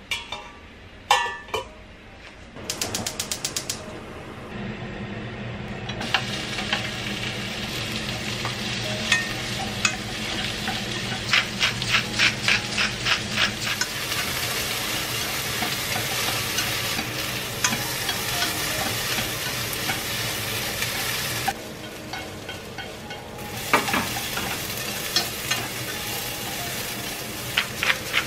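Sliced onion and carrot stir-frying in oil in a nonstick pan: a steady sizzle with wooden chopsticks tapping and scraping the pan in quick runs of strokes. It opens with a few clinks and a fast run of ticks. Near the last quarter the sizzle drops away for a couple of seconds, then starts again.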